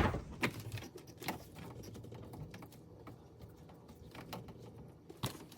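Irregular light clicks and taps of handling as a dishwasher drain hose is fitted onto a garbage disposal's inlet under the sink, with a sharper knock at the start and another near the end.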